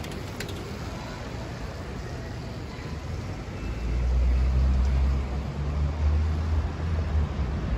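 Traffic ambience on a wet city street: a steady hiss of tyres and distant traffic. About halfway through, a louder low rumble swells and lasts a few seconds.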